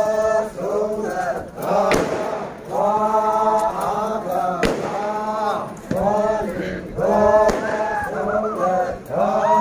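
Group of men in a Phom Naga warrior procession chanting in unison, in short rising-and-falling phrases about a second long. Two sharp cracks ring out among the chanting.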